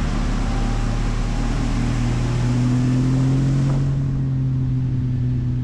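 Mercury outboard motor running at speed, pushing a bass boat on plane: a steady engine drone that climbs slightly in pitch a couple of seconds in, over a loud rush of wind and water spray that eases about four seconds in.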